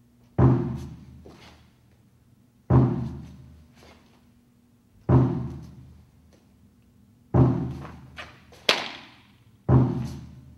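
A drum beaten at a slow, even pace, five single strokes about two and a half seconds apart, each deep stroke ringing out and dying away: the count drum that sets the pace of each move of a Tang Soo Do hyung. A short, sharp crack comes shortly after the fourth beat.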